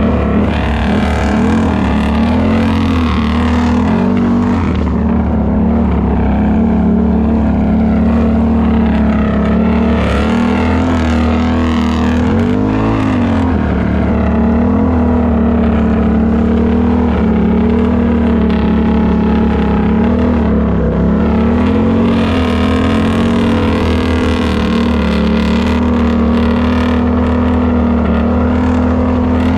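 Can-Am ATV engine running steadily while riding, its pitch rising and dipping a little as the throttle changes.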